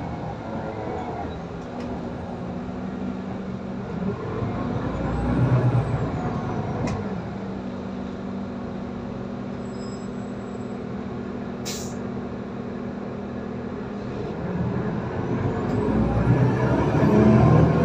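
Solaris Urbino 18 III articulated diesel city bus heard from inside the passenger cabin while driving: a steady engine and drivetrain hum that swells louder twice, about a third of the way in and again near the end. A single sharp click comes about two-thirds of the way through.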